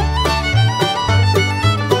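Background music: a lively fiddle-led tune over held bass notes, with a steady beat.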